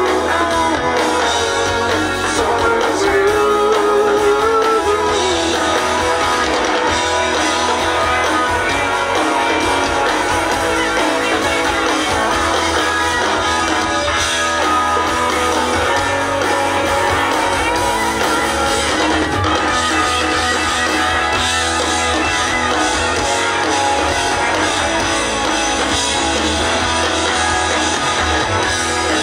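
Amplified rock band playing, with guitars and drums, at a steady loud level.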